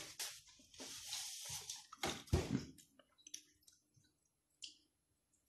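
A paper napkin being handled and crumpled, rustling for a couple of seconds, with a thump on the table a little over two seconds in.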